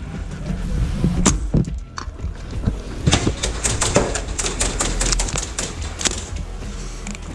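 Airsoft gunfire: a couple of single sharp knocks in the first two seconds, then a fast irregular run of snapping clicks, several a second, from about three seconds in until near the end.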